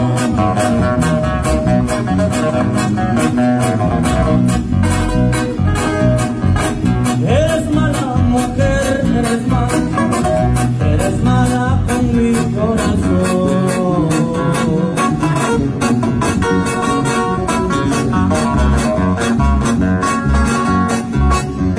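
Live band music: acoustic guitars and a drum kit keeping a steady beat, with a voice singing at times.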